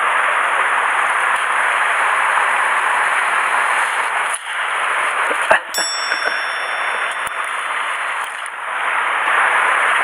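Steady rush of stream water spilling over the low concrete steps of a culvert and pouring from a drain pipe. A little past halfway there is a sharp click, followed by a brief metallic ping that rings on for about a second.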